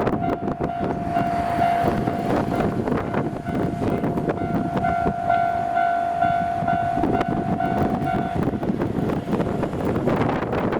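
Level crossing warning alarm ringing its repeated electronic tone while a Kishigawa Line train passes over the crossing; the alarm stops about eight seconds in, leaving the train noise.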